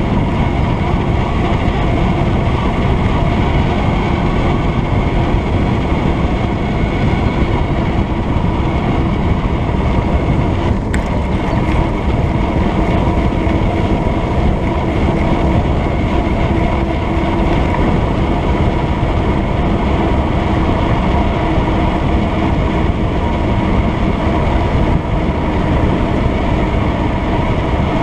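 Steady rushing noise of a mountain bike descending fast: wind on the camera microphone mixed with tyre hum, with a faint steady tone running through it. A single sharp click about eleven seconds in.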